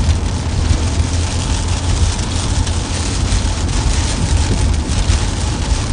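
Car driving at speed, heard inside the cabin: a steady, loud low rumble of road and engine noise, with rain starting to hit the car.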